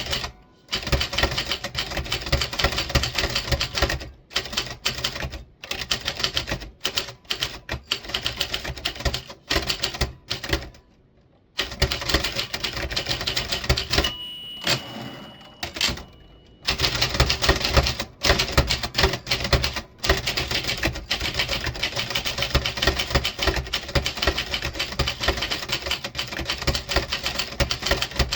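Typewriter being typed on quickly: a dense run of key strikes clacking against the platen, broken by a few short pauses. Partway through there is a steady tone lasting a couple of seconds.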